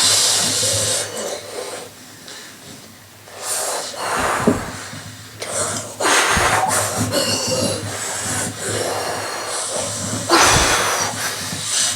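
Minka ceiling fan running: a steady low hum under irregular gusts of rushing air that swell and fade every few seconds.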